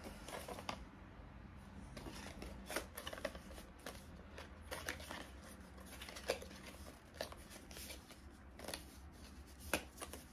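Small cardboard box being opened and handled by hand: scattered rustles, taps and sharp little clicks of the card flaps and a paper insert.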